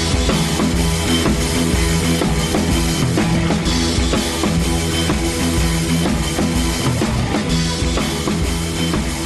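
Intro music: a rock track with a drum kit beat and sustained bass and guitar notes.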